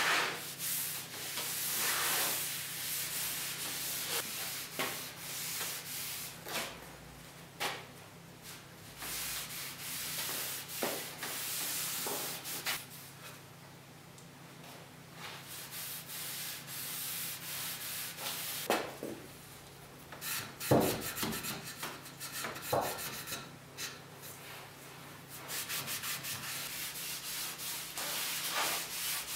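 Sandpaper rubbed by hand over a solid-wood tabletop in irregular scratchy strokes, over a steady low hum. A sharp knock comes about two-thirds of the way through.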